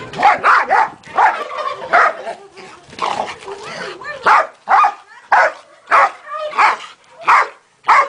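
Dog barking over and over, the barks crowded together at first and then coming evenly, about three every two seconds.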